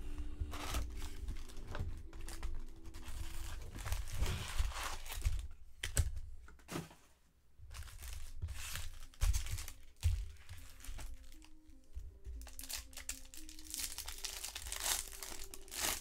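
Plastic and foil wrapping on a box of baseball cards being torn and crinkled as the box is opened, in irregular crackling bursts. Soft background music with held notes plays under it.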